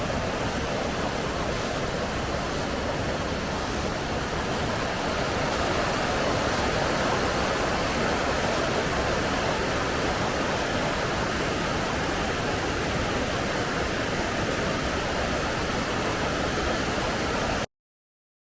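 Waterfall pouring: a steady rush of falling water that cuts off suddenly near the end.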